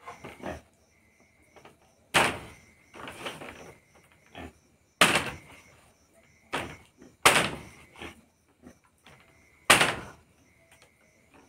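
A large broad-bladed knife chopping meat on a wooden block: single heavy chops at an irregular pace, a second or two apart, some harder than others.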